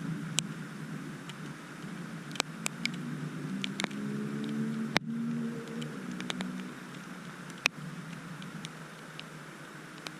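Scattered sharp raindrop taps over a steady low outdoor rumble, with a vehicle's engine humming as it passes about four to seven seconds in.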